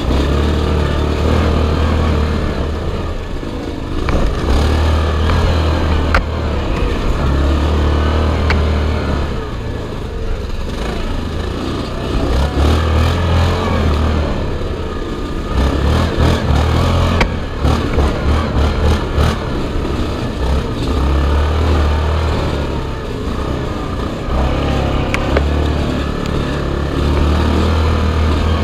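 Sport quad (ATV) engine running hard on a rough trail, the throttle opening and easing off over and over. A run of sharp knocks and clatter from the jolting machine comes around the middle.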